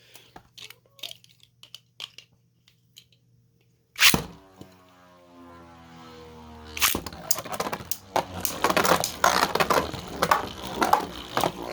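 Beyblade spinning tops in a plastic stadium: a loud clack about four seconds in, then a steady whir as the tops spin. From about seven seconds on they clash in rapid, repeated hard hits.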